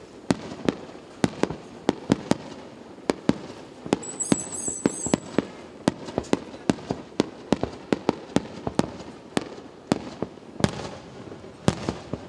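Aerial firework shells bursting in quick succession, sharp bangs two or three times a second at uneven spacing over a continuous rumble. A brief high whistle comes about four seconds in.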